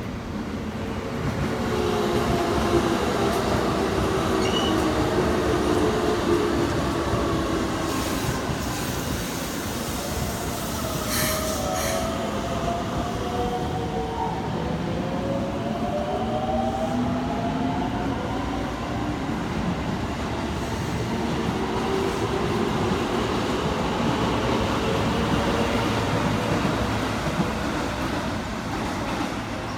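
A Keikyu 600-series eight-car electric train pulling out of the station and accelerating past. Its traction motors whine in several gliding tones that rise and fall as the cars go by, over a steady rumble and the clack of wheels on rail joints. A brief high squeal comes about 8 to 12 seconds in.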